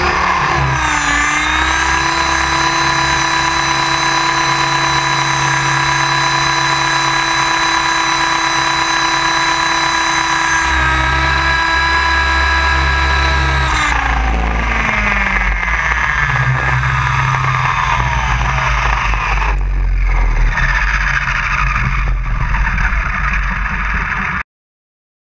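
Electric Align Trex 700 RC helicopter heard from an onboard camera: a steady high whine from the motor, gears and rotor with wind rumble on the microphone. About fourteen seconds in the whine falls in pitch as the rotor slows, leaving mostly rumble until the sound cuts off just before the end.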